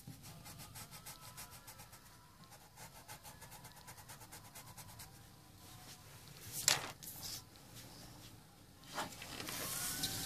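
Paper blending stump rubbed over drawing paper in quick, even strokes for about five seconds. A sharp knock comes a little past halfway, and paper slides across a table near the end.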